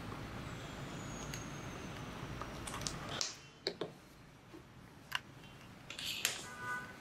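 A few sharp clicks and taps of a small plastic video recorder and its camera cable being handled on a table, over a steady low hum that drops away about three seconds in.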